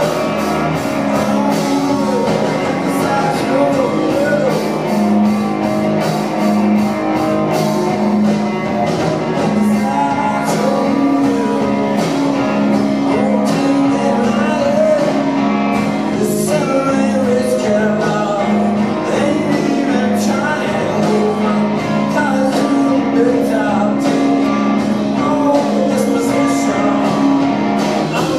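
Live rock music: a man singing over a strummed electric guitar, with a steady beat behind him.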